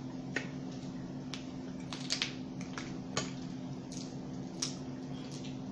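Crab-leg shells cracking and snapping as they are broken apart by hand, in irregular sharp clicks, over a steady low hum.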